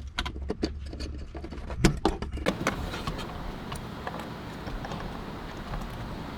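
Light clicks and knocks of plastic trunk trim, clips and connectors being handled and fitted back on a car, with two sharper knocks about two seconds in. A low steady hum stops about half a second later, leaving faint hiss and occasional ticks.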